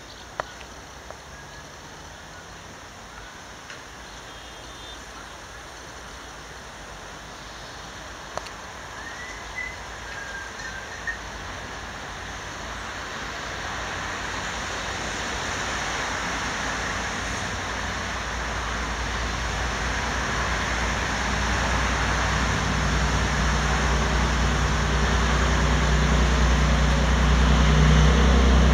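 MÁV class 418 (M41) diesel-hydraulic locomotive approaching, its diesel engine getting steadily louder, from faint at first to a loud, low, steady hum in the last third.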